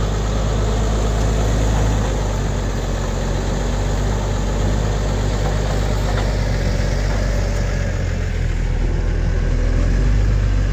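New Holland T6070 tractor's diesel engine running steadily at a low, even speed.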